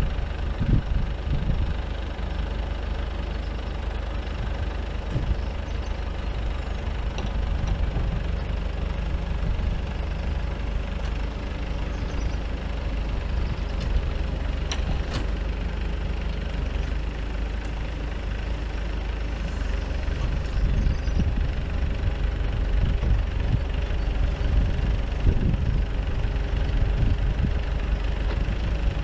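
Nissan Cabstar truck's diesel engine idling steadily while the boom lift's hydraulic outrigger leg is lowered, with a few light clicks about halfway through.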